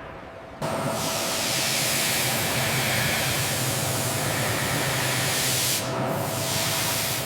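A steady hiss, like air or spray jetting, starts abruptly about half a second in and runs on with a faint steady tone under it, easing briefly near six seconds.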